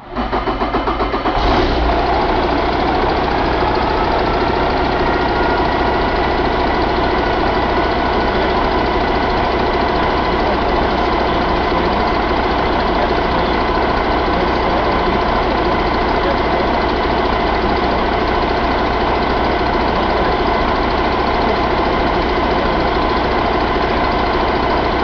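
Mercedes-Benz MBE4000 inline-six truck diesel engine on a test stand, cranking with a rhythmic pulse and catching about a second and a half in. It then runs up as a whine rises over the next couple of seconds, and settles into a steady idle.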